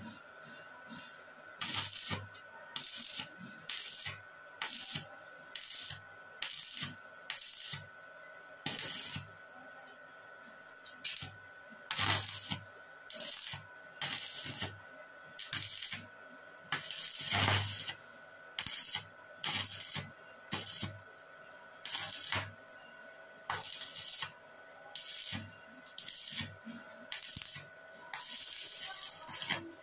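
Stick-welding arc crackling and sputtering in short bursts, struck and broken again roughly once every second, as the electrode fills a gap at a steel square-tube joint. A faint steady whine runs underneath.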